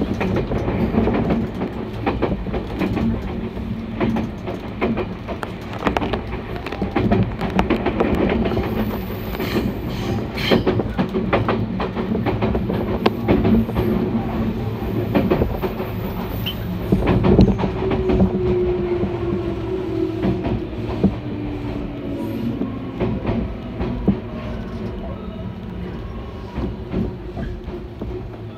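Electric commuter train heard from inside the car, wheels clicking over rail joints and points with a steady low rumble as it slows into a station. About two-thirds of the way through, a whine falls in pitch as the train brakes, and the rumble grows quieter toward the end.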